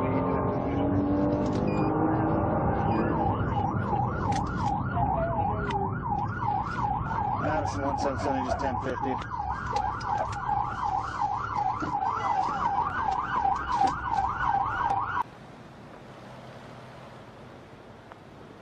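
Police siren in a fast yelp, its pitch sweeping up and down about two and a half times a second, over the vehicle's engine and road noise. It cuts off abruptly about fifteen seconds in, leaving a quieter steady rush of road and wind noise.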